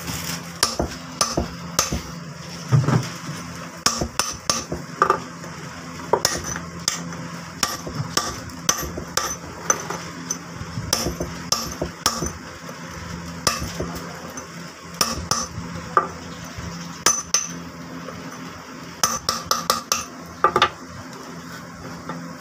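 Hammer striking a steel chisel held against a stone flour-mill millstone, chipping along a marked line on its grinding face: sharp metallic clinks at an uneven pace, two or three a second, with short pauses.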